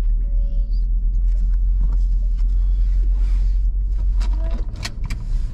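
Steady low rumble of a car driving, heard from inside the cabin, with a few light clicks about four to five seconds in.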